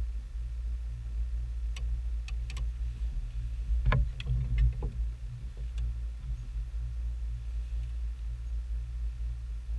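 Steady low hum of a boat's electric trolling motor pushing the boat slowly while spider rigging. A few knocks and clicks about four seconds in, from rods being handled in their holders.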